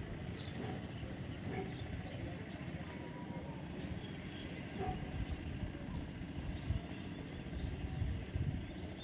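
Steady low rumbling background noise with faint, short, high chirps from a baby parrot scattered through it.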